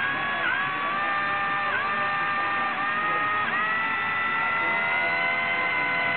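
Blade mCP X micro RC helicopter's main rotor motor whining with the rotor spinning, its pitch dipping sharply and recovering about four times in the first few seconds, then climbing slowly.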